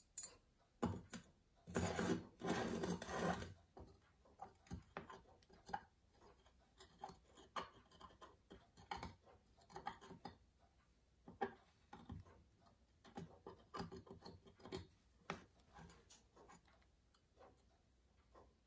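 Small metal work at a wooden bench: a fine steel pin and wire scratching, clicking and rubbing against a pocket-watch case ring and its hinge knuckles, as the hinge is pinned. A longer, louder scrape comes about two seconds in; otherwise short scattered ticks and rubs.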